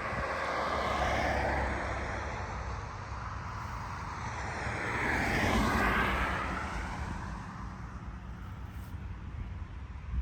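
Steady rushing noise of a passing engine, swelling about a second in and again around six seconds, then fading.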